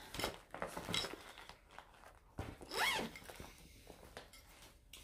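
Faint rustling and small clicks of cross-stitch projects and fabric being handled, with one short rising-and-falling squeak about three seconds in.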